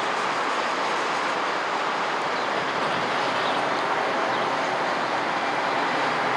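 Steady, even rushing noise with no distinct events, tones or voices.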